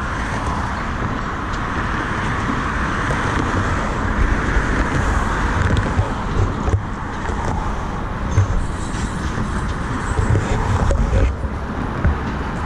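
CN diesel switcher locomotive and its slug running, a steady rumble with a few short knocks partway through.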